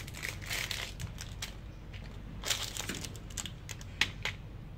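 Plastic packaging crinkling in irregular bursts as a label-tape cassette is unwrapped and handled, then two sharp plastic clicks near the end.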